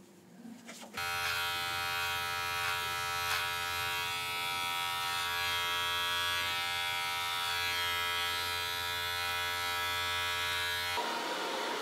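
Electric hair clippers buzzing steadily while trimming short hair at the side of the head, starting about a second in. Near the end the buzz cuts off and a steady rushing noise takes over.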